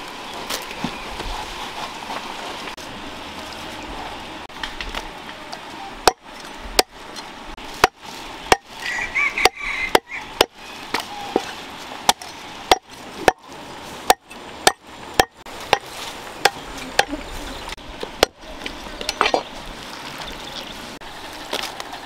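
A knife chopping a plucked duck into pieces on a chopping block: a run of sharp, irregular chops, one or two a second, starting about six seconds in and stopping a few seconds before the end.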